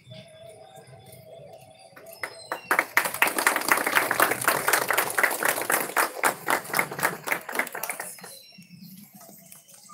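A group of people clapping: applause starts about three seconds in, runs for about five seconds, then fades out.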